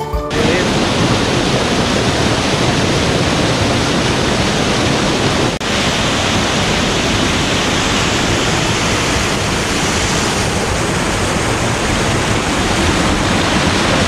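Small waterfall pouring into a pool right at the microphone: a loud, steady rush of falling water, with a brief dip about five and a half seconds in.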